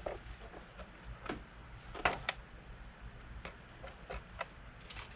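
Scattered light clicks and taps, several over a few seconds with a pair slightly louder about two seconds in, from handling the plastic airbox cover and the riveted scoop between drilling attempts.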